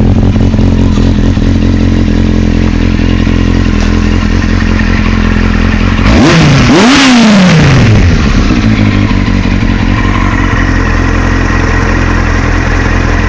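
Freshly rebuilt, not yet broken-in R1 motorcycle engine idling steadily, with one throttle blip about six seconds in: the revs jump sharply and then fall back to idle over a couple of seconds.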